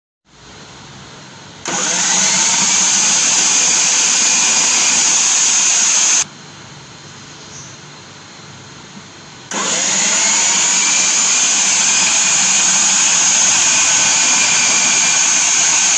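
Electric food processor motor running as peeled cassava is pushed down its feed tube onto the slicing disc. It runs for about four and a half seconds, stops, then starts again about three seconds later and keeps running.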